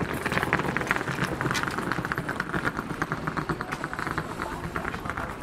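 Busy pedestrian street: many footsteps clicking on the pavement, with faint chatter of passers-by.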